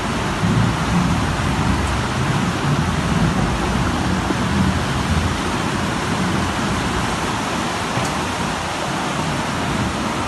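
Flash floodwater rushing through a street in a loud, steady torrent, with a deep churning rumble underneath.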